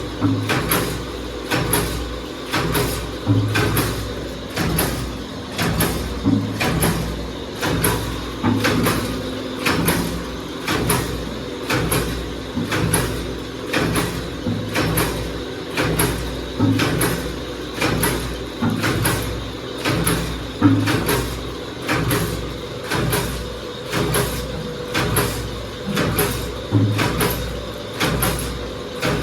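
Fully automatic paper dona (paper bowl) making machine running, its forming press cycling in a steady rhythm of about one stroke a second, with a sharp knock on each stroke over a continuous low machine hum.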